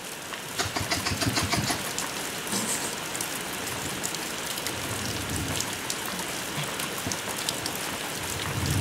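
Steady rain falling, with many drops ticking close to the microphone, and a few low thuds in the first couple of seconds.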